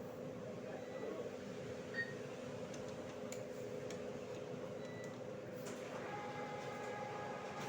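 Cash-deposit ATM machine running with a steady electrical hum, giving a short beep about two seconds in; a further whirring tone joins near the end.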